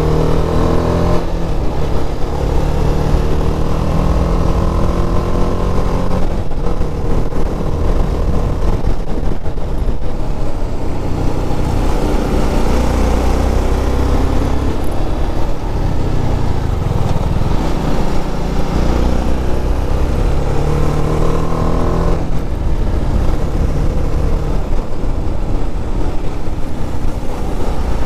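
TVS Apache RR310's single-cylinder engine running on the move, heard from the bike itself. The engine note changes pitch several times, about 1, 6 and 22 seconds in, under a steady rush of wind that is strongest midway.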